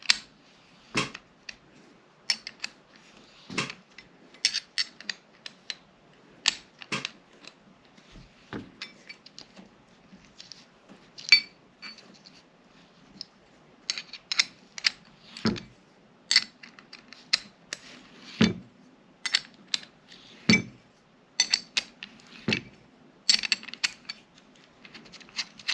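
Irregular sharp metal clicks and clinks of a wrench and a steel sight-pusher tool being worked on a Glock slide, with a few louder knocks.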